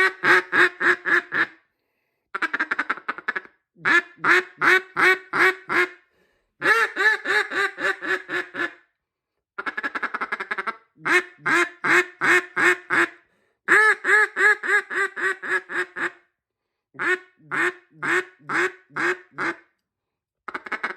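Buckeye burl wood and green resin duck call blown by hand, giving runs of short quacks, roughly eight sequences of several quacks each with brief pauses between.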